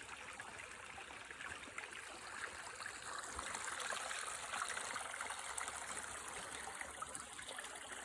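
Shallow water running and trickling steadily, as from a beaver pond being drained through its dam.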